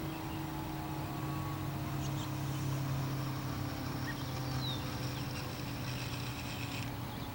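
Federal Signal 508 mechanical tornado siren winding down after its alert: a low, slowly falling tone, much quieter than the full sounding. A few faint bird chirps sound over it.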